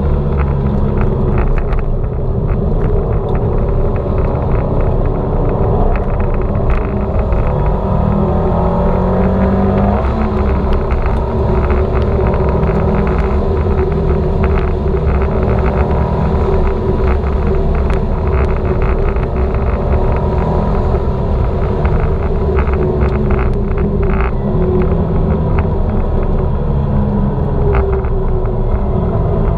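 Turbocharged Subaru Forester XT flat-four engine running hard on track, its pitch rising and falling repeatedly with throttle and gear changes, over steady wind and road noise.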